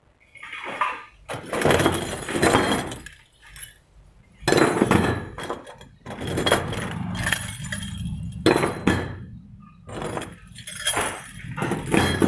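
Stainless steel lezims being handled and piled together, the steel washers on their chains jingling and clinking in repeated bursts.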